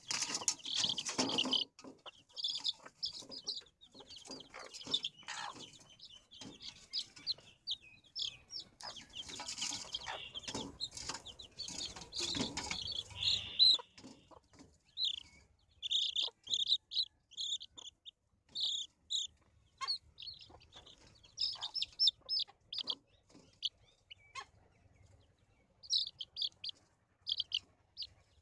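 Baby chicks peeping in short, high, repeated cheeps, with a country hen clucking. Scattered knocks and rustling run through the first half and stop about halfway, leaving mostly the chicks' peeping.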